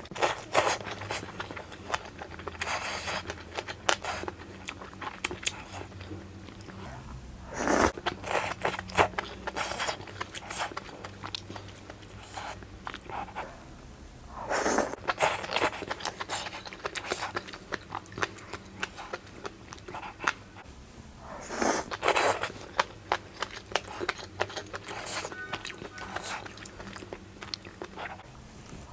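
A person chewing and biting hotpot food close to the microphone, with many small wet clicks and a louder cluster of mouth sounds about every seven seconds.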